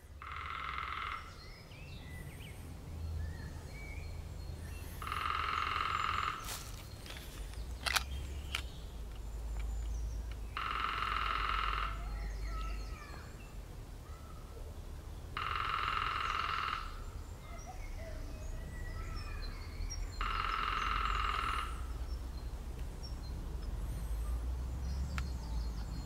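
Lesser spotted woodpecker drumming on a branch: five rolls, each about a second and a half long, repeated about every five seconds. This is the species' spring territorial drumming.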